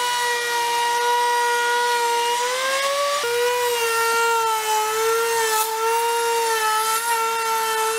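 Compact trim router with a flush trim bit running in plywood, a steady high whine. Its pitch climbs slightly about two and a half seconds in, then drops abruptly just after three seconds and holds steady.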